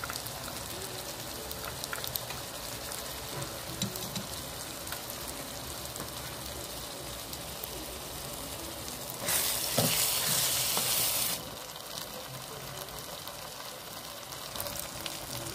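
Chopped onions and tomatoes sizzling in oil in a frying pan, with turmeric and berbere spice stirred in, a steady crackling hiss. For about two seconds past the middle the hiss grows louder.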